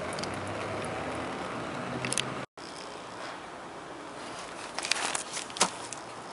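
Steady background noise, broken off by an edit about two and a half seconds in, followed by quieter background noise and a few small clicks of handling near the end.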